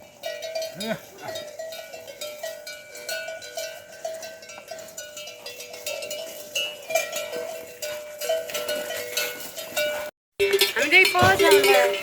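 Metal neck bells on a flock of sheep and goats, clanking over and over in an uneven rhythm as the animals move. Near the end a short, wavering high call breaks in over the bells.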